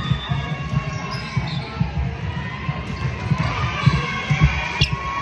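Basketball game in a gym: the ball bouncing among irregular low thuds of feet on the court, with short high squeaks of sneakers on the floor.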